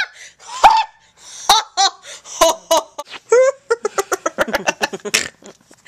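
A girl laughing hard in repeated fits, breaking into a quick run of short laughs near the end.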